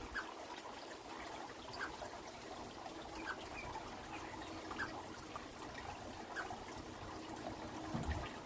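Water trickling steadily, with a short high chirp about every second and a half.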